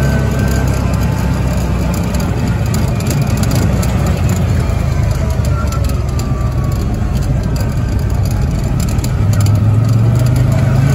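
Engine of an off-road vehicle driving along a rough dirt trail: a steady drone that swells about nine seconds in, with a faint falling whine around the middle.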